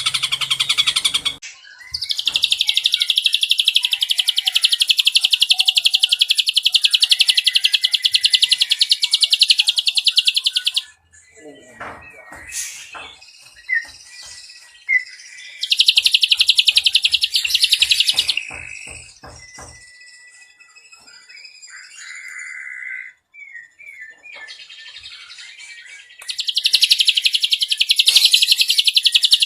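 Ashy drongo singing: long, very rapid trills of fast-repeated high notes, the first lasting about nine seconds, with two shorter trills later and quieter scattered chirps and calls between them.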